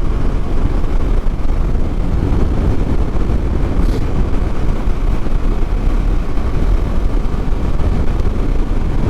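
Heavy wind buffeting the microphone of a motorcycle rider at road speed: a loud, steady low rumble with no clear engine note.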